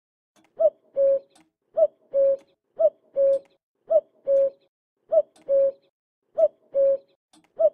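Common cuckoo calling its two-note "cuck-oo", a short higher note falling to a longer lower one, repeated steadily about once a second.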